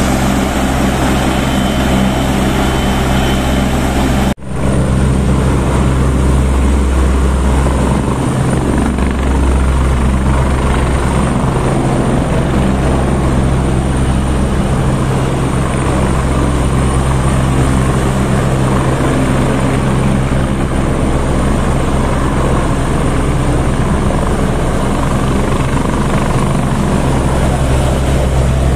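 Airbus EC175 helicopter's rotors and turbines running loud and steady as it lifts off and climbs away. A high thin whine sits over a deep rotor hum, with a brief cut in the sound about four seconds in.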